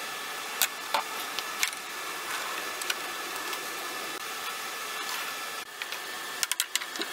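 A few sharp knocks as a heavy cedar slab tabletop is tipped over and set down on a concrete floor, over a steady hiss. A quick run of sharp taps starts near the end.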